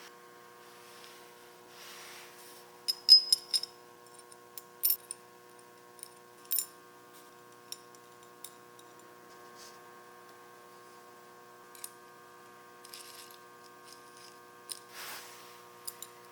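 Sharp metallic clinks and clicks of E-track rack fittings being handled and fitted together. The loudest cluster comes about three seconds in, and single clinks are scattered after it. A steady hum runs underneath.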